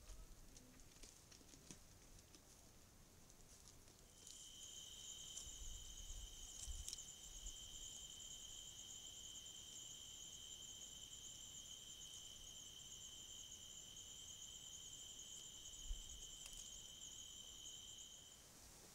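Steady chorus of night-singing insects, a continuous high-pitched trill that starts about four seconds in and cuts off shortly before the end. A single sharp tick sounds about sixteen seconds in.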